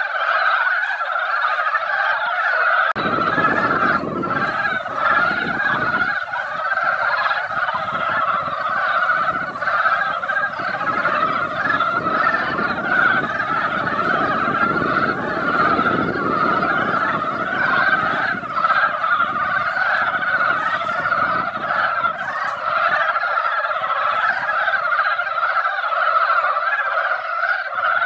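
Breeding chorus of many Korean brown frogs (mountain frogs) calling together in a spring pond, a dense, unbroken mass of overlapping croaks. Males gather and call at the pond to mate after rain.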